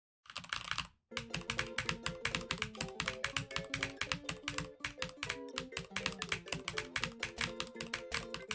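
Rapid, even clicking like fast typing on a keyboard, about eight clicks a second, over a quiet melody of steady notes. It starts abruptly with a short burst, breaks briefly, then the clicking runs on.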